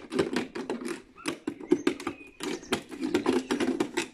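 Scissors cutting through a thin plastic bottle: a quick, irregular run of snips and crackles of the plastic, pausing briefly twice.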